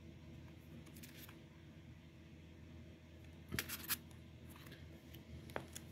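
Faint rustling and crisp clicks of postcards in clear plastic sleeves being handled and swapped, with a short burst of crinkling about three and a half seconds in and a single click near the end.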